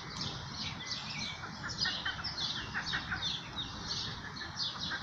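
Many small birds chirping without a break: short, high chirps in quick succession over a low, steady background hum.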